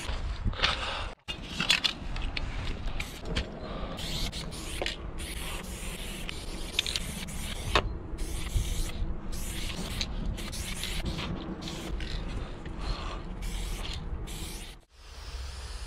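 Aerosol spray paint cans hissing in many bursts, short and long, stopping and starting again and again as paint goes onto the freight car's side.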